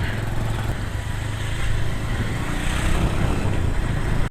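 Motorcycle engine running steadily on the move, with an even rushing noise over it.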